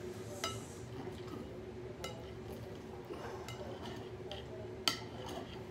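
Steel knife and fork clinking and scraping against a plate while cutting into a cooked steak: several short ringing clinks, the loudest nearly five seconds in.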